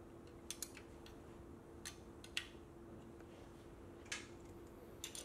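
Sparse light metallic clicks, about half a dozen, as a small wrench works a screw on a steel linkage bracket mounted on an engine case, over a steady faint hum.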